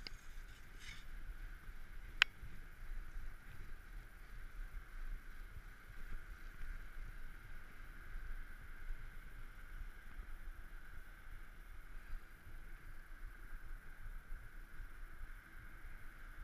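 Steady muffled wind and tyre rolling noise of a mountain bike riding over paving, heard through an action camera's housing, with a single sharp click about two seconds in.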